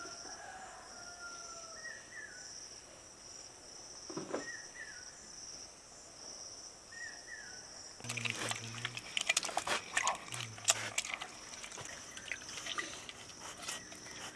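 A steady high-pitched buzz with a few short chirps, then from about eight seconds in, wet squelching and splashing as a hand squeezes and stirs something in a steel bowl of liquid.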